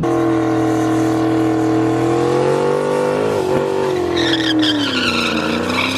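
Turbocharged Ford Mustang GT's 5.0 V8 held at high revs during a burnout, the engine note wavering with a brief dip partway through. A high tire squeal from the spinning rear tires joins about four seconds in.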